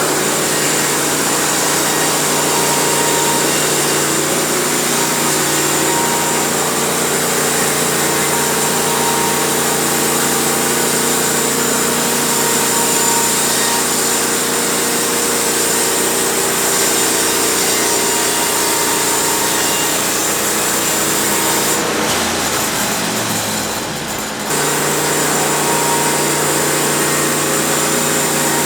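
Portable sawmill's engine running steadily while the saw cuts through a cedar log. The sound briefly drops away a little over 20 seconds in, then comes back at full level.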